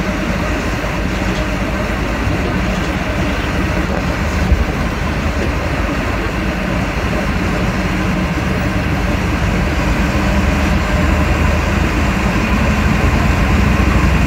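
Heavy diesel truck engine running steadily, growing a little louder near the end.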